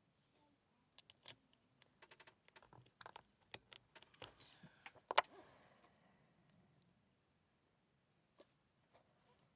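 Light metallic clicks and taps from a titanium tuning-fork fidget slider being picked at by hand while a small part is worked out of its inside, with one sharper clack about five seconds in that rings briefly, then quiet.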